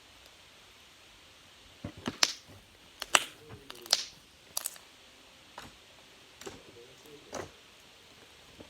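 A string of sharp, irregular clicks and pops, about eight of them, starting about two seconds in; the loudest come in the first few seconds.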